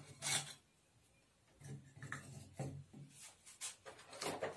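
Small items being handled and set into a sheet-metal tool holder on a tabletop: a few soft separate knocks with light rubbing and scraping between them, the firmest near the start and near the end.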